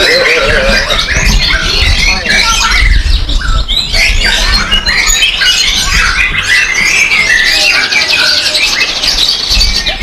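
Many caged songbirds singing at once: a dense, unbroken mix of chirps, trills and whistles, with a low rumble underneath.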